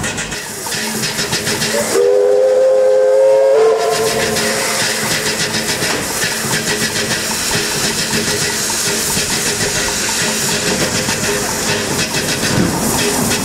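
Steam locomotive whistle blown once, for just under two seconds, about two seconds in, sounding several notes together that rise slightly at the start. Around it, the steady hiss and running noise of the steam train on the rails.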